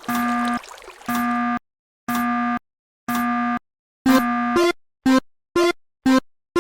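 Electronic railroad crossing warning tone, a steady ding-like note repeating about once a second, then speeding up to about two shorter dings a second.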